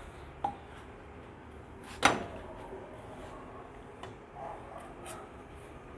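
Burger buns frying in a little oil in a pan, with a faint steady hiss. A utensil knocks sharply on the pan twice, the louder knock about two seconds in.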